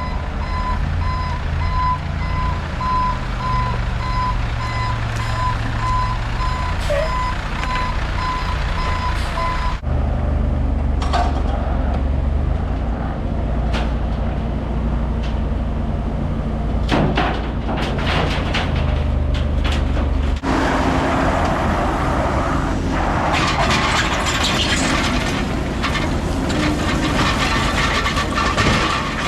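Dump truck backing in, its reversing alarm beeping evenly over its diesel engine running. The beeping stops abruptly about ten seconds in, leaving heavy diesel machinery running with scattered knocks, and the sound turns to a louder clattering and scraping of machinery for the last third.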